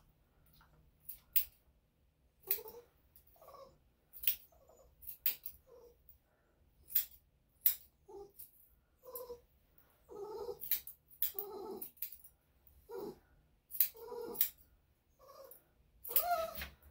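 Elderly Bichon–Shih Tzu mix dog making short complaining vocal sounds again and again, while grooming scissors snip with sharp clicks at the hair on its front paw.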